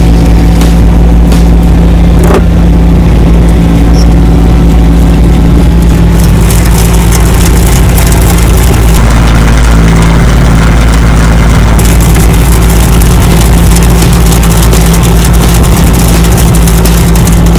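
Small farm tractor's engine running loud and steady, driving the rear rotary tiller as it churns weeds into the soil.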